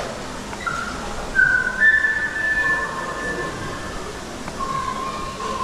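A high, whistle-like melody of long held notes that step from one pitch to another, over a faint hiss.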